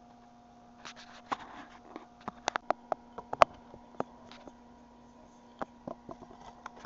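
Irregular sharp clicks and knocks of a knife, hands and camera being handled on a wooden cutting board, thickest in the first half with one loudest knock, then a few lighter taps near the end, over a faint steady hum.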